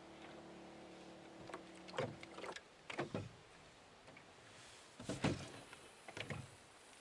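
A small motor hums steadily and stops about two and a half seconds in. A few irregular knocks and thumps follow, the loudest a little after five seconds in.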